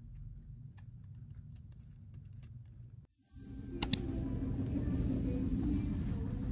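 A low steady room hum with faint clicks, then, after a cut, shop background noise with a steady rumble and hiss. Shortly after the change come two quick sharp taps, a fingernail on the plastic shrink-wrap of a small canvas, the loudest sounds here.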